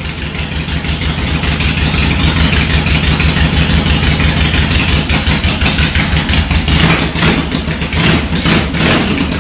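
Harley-Davidson Ironhead V-twin engine running with a rapid pulsing exhaust beat, blipped a few times in the last few seconds.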